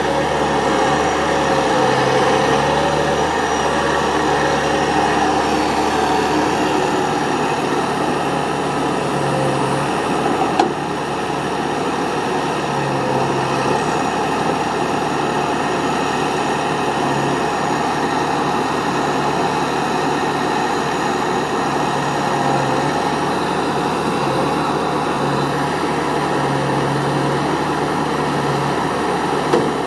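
Timberpro TF840B tracked forestry machine's diesel engine running steadily as its loader crane swings out over the logs, with a low hum coming and going. A single sharp knock about ten seconds in.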